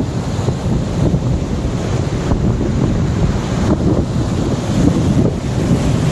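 Wind buffeting the microphone on the open deck of a moving boat, a loud, low, fluctuating rumble, over the rush of the boat's churning wake.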